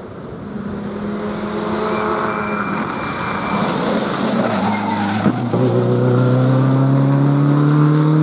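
Subaru Impreza rally car's turbocharged flat-four engine coming through a corner at speed with tyre noise, a sharp crack about five seconds in, then the engine pulling hard on a steadily rising pitch as the car accelerates away.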